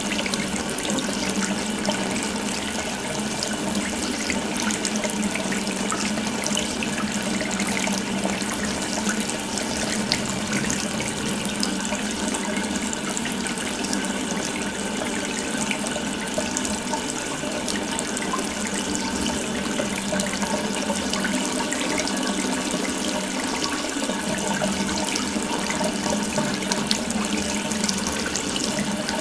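Water running from an open tap in a steady, unbroken stream.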